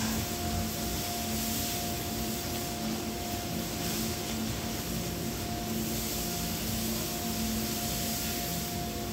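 Steady hiss with a faint hum of a few low tones running under it, as a paper shop towel is rubbed over the metal rotor and vanes of a disassembled air impact wrench to clean off dirt.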